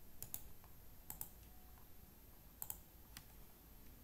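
Faint clicks of a computer mouse and keyboard: three quick pairs of clicks and one single click, spaced over a few seconds.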